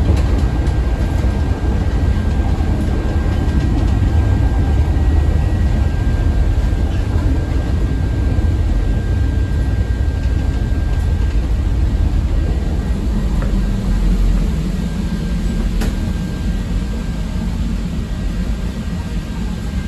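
Inside a CTA 5000-series rapid-transit car running on the rails: a steady low rumble of wheels and running gear with a faint steady whine above it. The rumble eases over the last few seconds as the train slows into a station.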